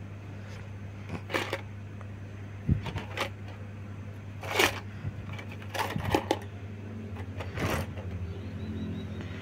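Small cardboard toy box handled and turned over in the hands: scattered short rustles and taps, about half a dozen, over a steady low hum.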